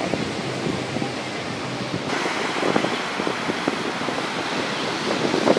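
Sea surf washing onto a sandy beach, mixed with wind on the microphone; the background noise changes abruptly about two seconds in.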